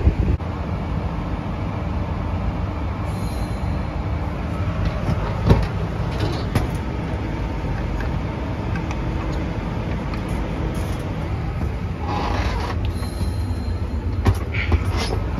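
A steady low mechanical rumble, with short hisses of nitrogen from a cylinder and hoses during a nitrogen sweep of the refrigerant system: a faint one about three seconds in and a louder, roughly one-second one near the end.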